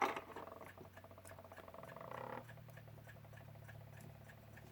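Small metal clock-movement parts being handled on the bench: a sharp click, then a fast fine rattle that fades after about two and a half seconds, over a low steady hum.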